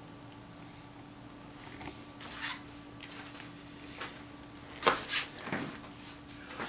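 Quiet room tone with a steady low hum, broken by a few short, soft rustles, the loudest about five seconds in.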